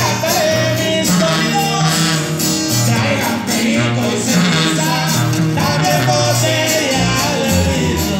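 A live band playing loudly through a stage PA, with a singer over the band and a bass line moving under it.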